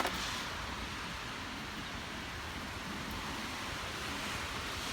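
Steady hissing noise of riding through heavy rain on a wet road, with a single click at the very start.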